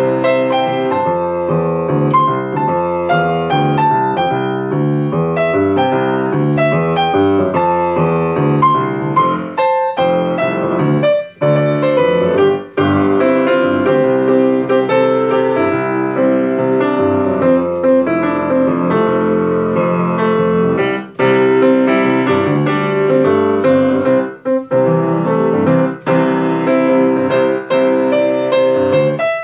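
Solo grand piano playing: quick runs of notes through the first ten seconds, then fuller held chords, with a few brief breaks between phrases.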